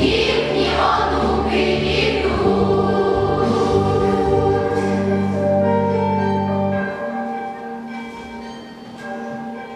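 Girls' school choir singing with instrumental accompaniment, moving into long held notes. About seven seconds in, the low accompaniment stops and the music fades away.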